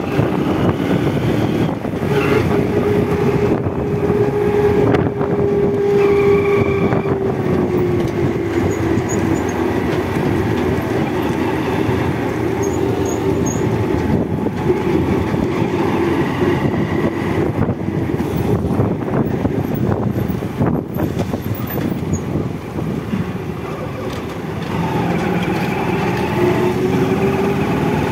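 Motorcycle engine running while riding at road speed, its pitch holding steady, dipping about eight seconds in and rising again near the end.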